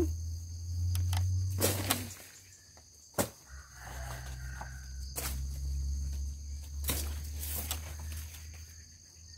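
Steady high chirring of crickets or other insects, with a few scattered footsteps and sharp snaps or knocks from moving through wet garden undergrowth; the sharpest comes about three seconds in. A low steady rumble underlies it all.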